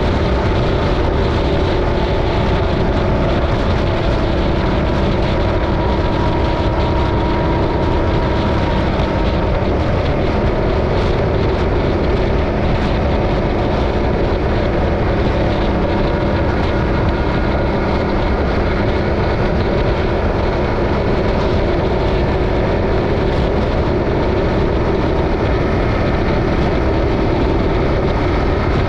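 Yamaha Ténéré 700's parallel-twin engine running at a steady highway cruise, mixed with wind and road noise on the bike-mounted camera's microphone. The engine note shifts slightly in pitch near the end.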